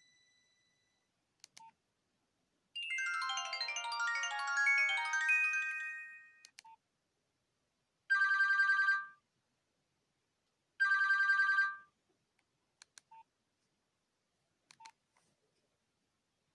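Nokia 1661 mobile phone playing short tones through its small speaker: a quick melodic run of notes for about four seconds, then two identical one-second warbling beeps a few seconds apart, with a few short clicks in the gaps.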